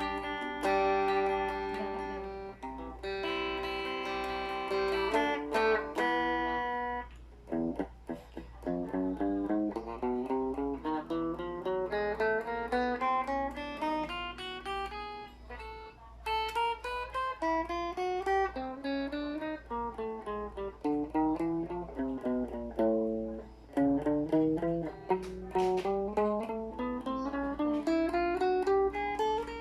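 Thomson Stratocaster-style electric guitar played through a Laney amplifier. It opens with several ringing chords, then about seven seconds in moves to fast single-note scale runs that climb and fall, over a steady low amplifier hum.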